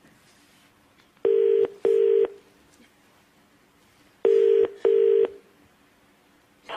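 British telephone ringing tone heard over the phone line: a double ring, two short steady buzzing tones in quick succession, repeating twice about three seconds apart while the call waits to be answered.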